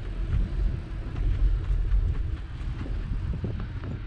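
Wind buffeting the microphone of a camera on a moving bicycle riding over snow: a steady low rumble, with faint small ticks and crunches from the ride above it.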